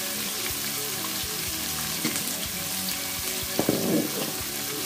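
Freshly sliced onions sizzling as they fry in hot oil in an aluminium cooking pot, a steady crackling hiss, with a few light knocks near the end.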